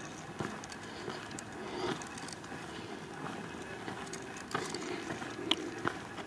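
Quiet outdoor ambience: a steady faint hiss with scattered light clicks and taps.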